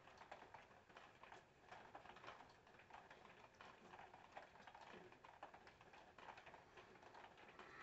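Near silence: faint room tone with scattered light ticks.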